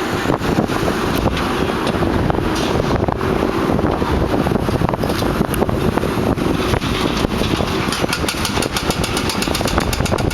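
Heavy demolition machinery with its engine running steadily, loud and rumbling, with scattered knocks and a fast run of repeated hammering impacts near the end.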